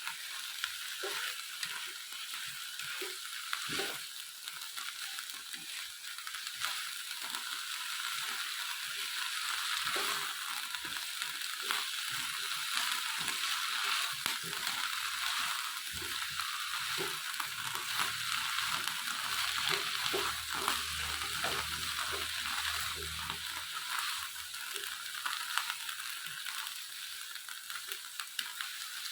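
Food frying in a hot pan: a steady sizzle with small crackles and pops.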